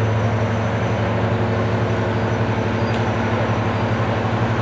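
Deltic diesel locomotive running as it approaches slowly: its Napier Deltic two-stroke engines give a steady low drone with a rapid, even pulse.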